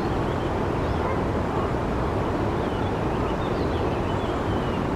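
Steady rush of river water, even and unbroken, with faint bird chirps high above it.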